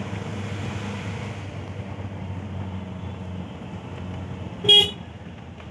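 A vehicle driving steadily, its engine and road noise making a constant low drone. A little under five seconds in, a horn gives one short beep, the loudest sound here.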